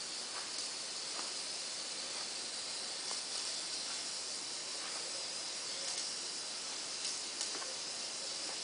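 Steady high hiss with faint soft rustles and scrapes of a hand rubbing oil into whole wheat flour in a bowl.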